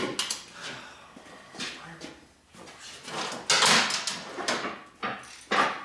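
Scraping and knocking as a motorcycle tire and wheel are shifted into place in a hydraulic shop press. The loudest scraping rush comes about three and a half seconds in, and a shorter one near the end.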